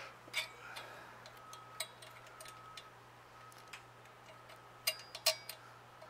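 A few light metallic clicks and taps of a bolt and washers being handled, two close together near the end, over a faint steady low hum.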